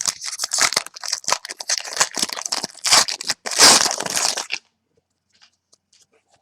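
Foil wrapper of a football trading card pack being torn open and crinkled by hand, a dense run of crinkling that stops abruptly about four and a half seconds in.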